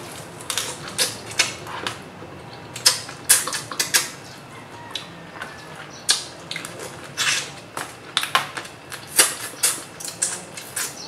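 Close-up eating of crab and shrimp: shells cracking and crunching between teeth and fingers, heard as irregular sharp clicks and crackles, several a second at times.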